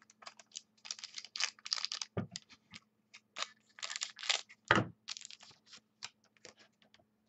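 Football trading cards and foil packs being handled: an irregular run of quick clicks and rustles as cards are flicked and wrappers worked, with two dull thumps about two and five seconds in.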